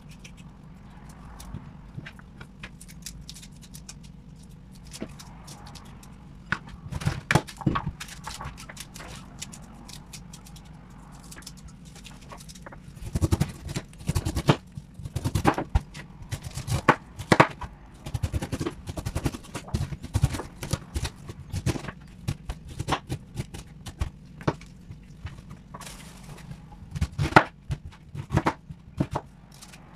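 Kitchen knife cutting through a whole pineapple and knocking on a plastic cutting board: irregular sharp knocks, sparse at first and then coming in quick clusters, over a steady low hum.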